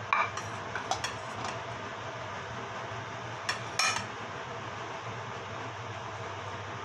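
A white ceramic bowl clinking as it is lifted and set down, with a few light knocks in the first second and a half and two more about three and a half seconds in. A steady low hum and hiss runs underneath.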